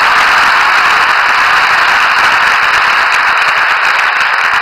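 Audience applauding: dense, steady clapping, loud throughout.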